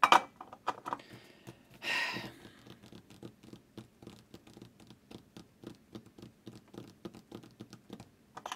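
Soldering iron set into its stand with a short clatter, then fingers tapping and drumming on the bench in a quick, irregular patter of small clicks. A brief breathy noise comes about two seconds in.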